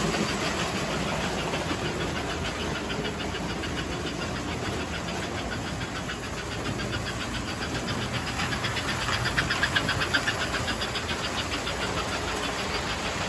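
Several model trains running around a layout at once: motors whirring and wheels clicking over the track in a fast, steady rhythm, louder for a moment about nine to ten seconds in.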